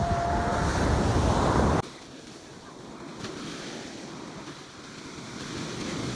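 Wind buffeting the microphone, which cuts off suddenly about two seconds in; then the steady wash of surf breaking on a sandy beach, slowly swelling toward the end.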